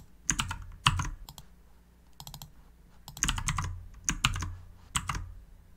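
Computer keyboard keystrokes and clicks: scattered single taps, with a quick run of several about two seconds in, as keyboard shortcuts select all and paste code.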